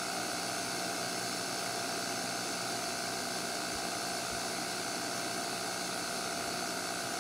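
Sony CV-2000D reel-to-reel videocorder running, a steady whir from its spinning head drum and motors with a constant hum in it.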